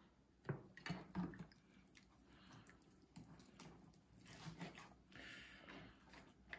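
Hand rubbing canola oil into the skin of a raw chicken: faint, wet squishing and patting. A few soft knocks come in the first second and a half.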